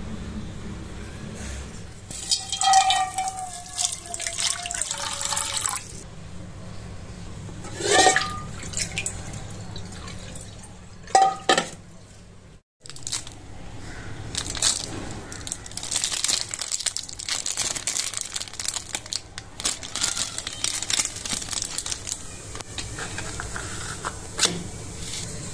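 Water running and splashing in a kitchen sink around a stainless steel kadai, with a few short squeaks in the first half.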